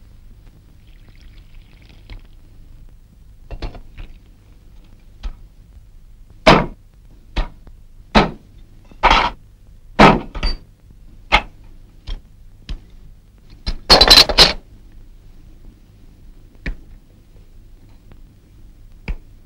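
Hard knocks and clinks of small metal type-casting moulds and tools being set down and handled on a workbench: about a dozen separate strikes at uneven intervals, with a longer, louder clatter about two-thirds of the way through.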